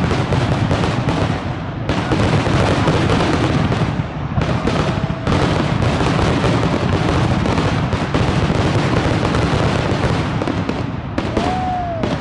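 Aerial fireworks display, many shells bursting in rapid succession so that the booms and crackles run together without a break. A brief whistle comes near the end.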